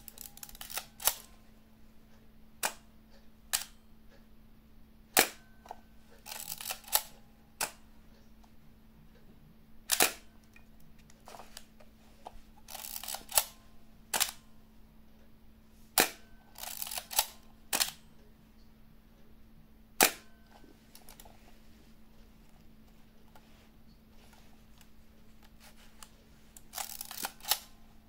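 Kowaflex Model E camera's shutter released over and over, about nine sharp clicks at irregular intervals a few seconds apart. Between some of them come longer rasping sounds of the film advance being wound.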